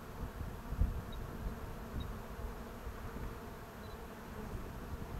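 A honeybee colony in an opened hive buzzing steadily during an inspection, a dense hum of many bees. The keepers call this much buzzing pretty much normal, the bees perhaps a little more agitated from the hive being open longer than usual. A low bump about a second in.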